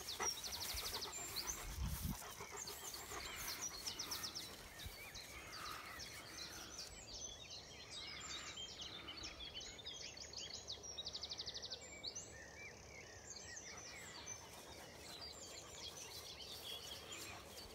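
Dawn chorus of many songbirds: overlapping chirps and calls with several rapid trills repeating through.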